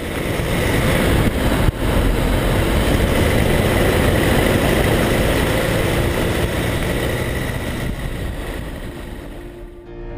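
Car driving along a road, heard from a camera mounted low outside beside a front wheel: steady road and wind noise with the engine underneath, easing off near the end.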